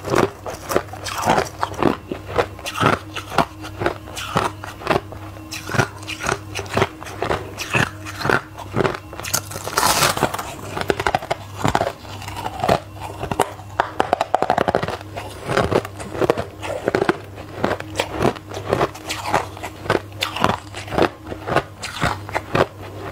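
A mouth biting and chewing crushed white ice, close up: crisp crunches about two a second, one louder crunch about ten seconds in. A faint steady low hum lies underneath.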